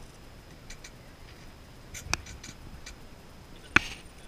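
A few short, sharp clicks and knocks over a faint steady hiss: one about two seconds in, a louder one near the end, with a few lighter ticks between.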